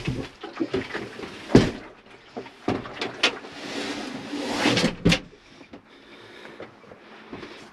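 Hinged 3/4-inch plywood bench top being lowered: wooden knocks and clatters, a scrape that builds about three to five seconds in, and a sharp knock as it comes to rest.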